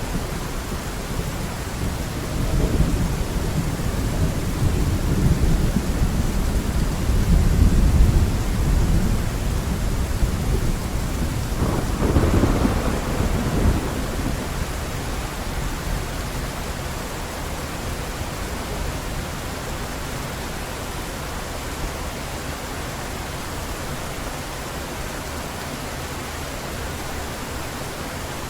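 Heavy rain falling steadily, with a long rolling rumble of thunder through the first half that swells twice before dying away, leaving only the rain.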